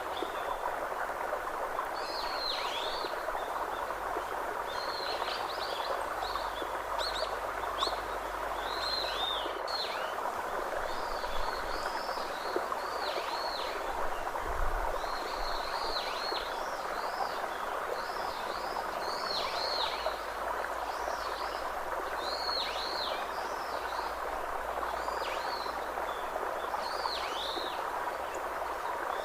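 A bird repeating short chirps that fall in pitch, about one a second, over a steady rushing background.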